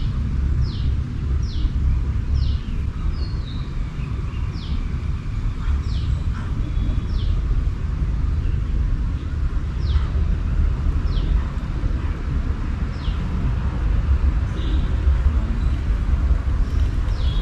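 Outdoor ambience dominated by a steady low rumble. Over it a bird repeatedly gives short, falling, high calls, about two a second at first and then only every second or so.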